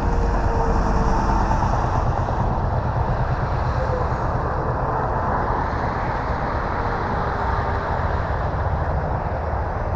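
Electric motor and propeller of a 1.2 m foam RC T-28 Trojan in flight: a faint whine that drifts slightly in pitch, over a steady low rumbling noise.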